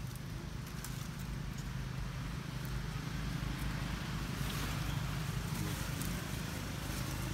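Steady low motor-like hum with a few faint clicks.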